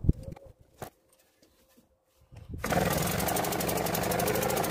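A few knocks and clicks in the first second, then quiet, then about two and a half seconds in, a British Seagull Forty Featherweight single-cylinder two-stroke outboard comes in running steadily with a rapid firing beat, its propeller churning the water in a test tank. It is the first run of the season after a fuel filter, cork plunger and cooling-passage overhaul, and the owner calls its running a little lumpy.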